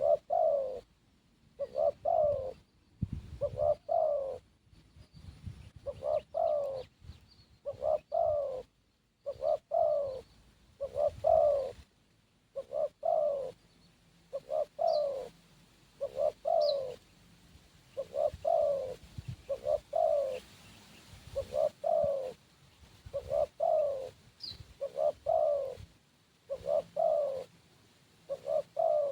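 Spotted dove (terkukur) cooing over and over, in phrases of two or three low coos that repeat about every one and a half to two seconds.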